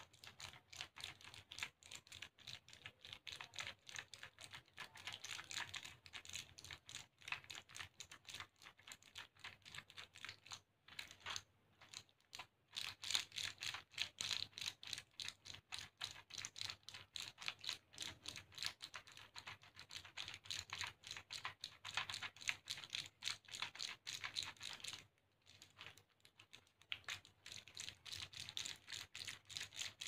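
Plastic blister sheets of candy-coated chocolate beans being handled by fingers: rapid light plastic clicking and crinkling, with short breaks about 11, 12 and 25 seconds in.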